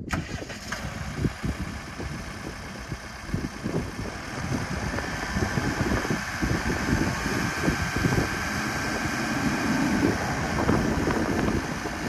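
The 97 hp turbo diesel engine of a 2012 Case 580 Super N backhoe starts and settles into a steady run. It comes in suddenly and gets louder from about four seconds in.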